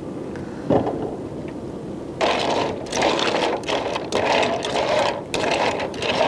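Steamer clams being stirred in a wok of simmering cream sauce: a steady sizzle, then from about two seconds in a quick, irregular clatter of shells clicking against each other and the pan.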